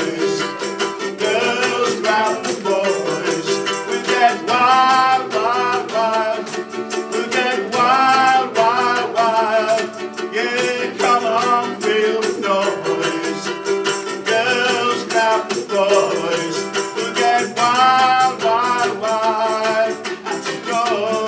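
Group of ukuleles strumming a rock song with voices singing along and a shaker keeping the beat.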